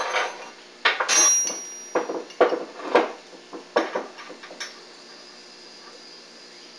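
Loose steel transmission parts clanking and rattling as the T84J gearshift housing is lifted off and handled: about a dozen sharp metal knocks, one with a brief ringing tone, stopping a little after halfway.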